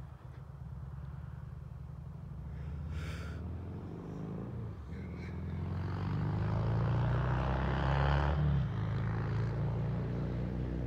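Harley-Davidson Street Glide's 114-cubic-inch V-twin with Bassani exhaust running with a deep, steady rumble. It grows louder over several seconds as the bike comes closer, is loudest about eight seconds in, then eases a little.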